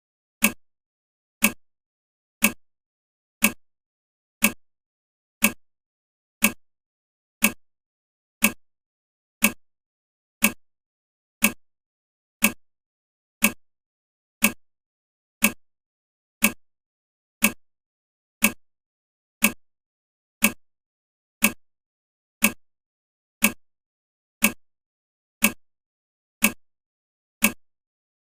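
Countdown timer ticking like a clock: one short, sharp tick every second, evenly spaced.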